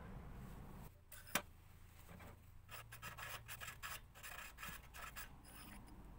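Valve being turned back and forth against a new valve seat marked with paint marker, faint scratchy rubbing strokes of metal on metal, checking the seat contact. A single sharp click sounds about a second in.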